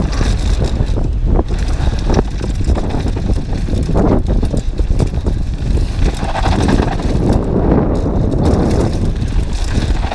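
Downhill mountain bike running fast over a loose gravel trail: tyres crunching and the bike rattling and knocking over bumps, with a steady low rumble of wind on the action camera's microphone.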